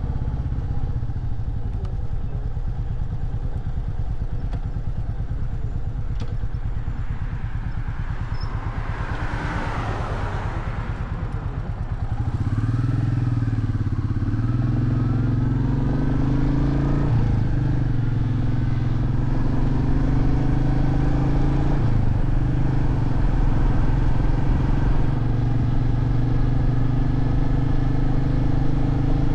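Royal Enfield Meteor 350's single-cylinder engine ticking over at low speed, with a brief rushing swell about ten seconds in. About twelve seconds in the engine pulls away louder, its note climbing through two upshifts, then runs steadily at cruising speed.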